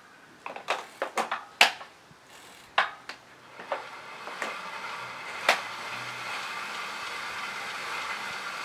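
A series of sharp clicks and knocks as a rider mounts a road bike on exercise rollers, then the tyres and rollers start to whir, building from about four seconds in to a steady spin.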